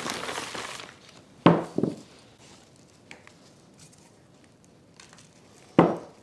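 A plastic bag of potting mix rustles as soil is scooped from it. Then come two sharp knocks close together and another near the end, as terracotta pots and the philodendron root ball are handled.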